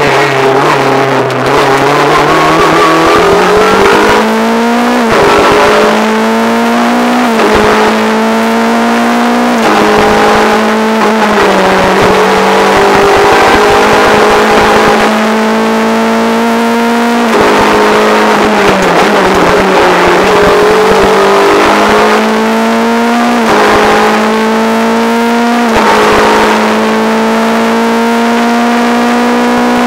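Renault Clio R3 rally car's 2.0-litre four-cylinder engine heard onboard at full load. The pitch climbs and then drops sharply again and again as it is driven hard through the gears, with roughly ten gear changes and a few steadier stretches between them.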